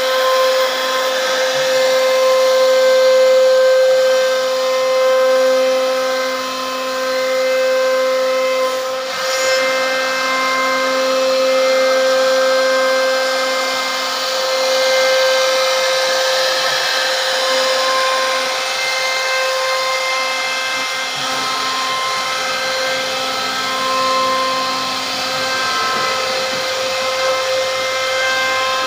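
The spindle of an MK1325A CNC router is milling a wooden frame. It gives a steady high-pitched whine over the hiss of the bit cutting wood, and the loudness swells and eases a little as the cutter travels.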